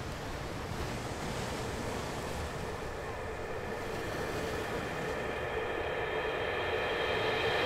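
Intro soundtrack swell: a steady surf-like rush of noise slowly growing louder, with held musical tones coming in near the end.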